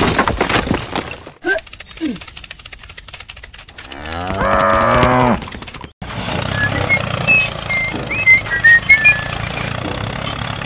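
A cow mooing once, a long call of about a second and a half starting about four seconds in, the loudest sound here. After it comes a steady low rumble with short high chirps over it.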